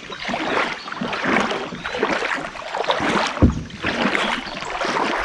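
River water sloshing and splashing close by in uneven surges, with one dull thump about three and a half seconds in.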